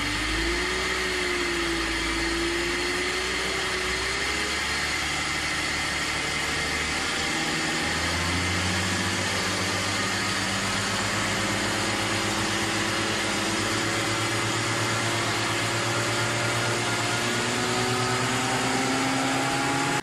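BMW E46 323i's 2.5-litre straight-six engine running while being revved. Its speed wavers for the first few seconds, then climbs slowly and steadily rather than in sharp blips.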